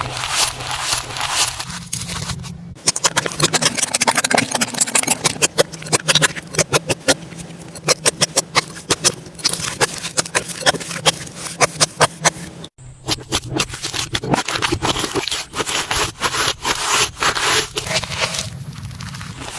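Slime being handled: dense, rapid crackling clicks and small pops, with a short break about thirteen seconds in.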